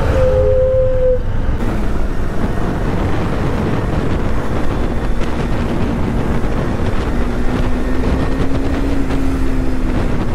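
Motorcycle riding along at road speed, with heavy wind noise on the rider's camera microphone. A brief steady tone sounds at the start, and the engine note then climbs slowly over several seconds and eases off near the end.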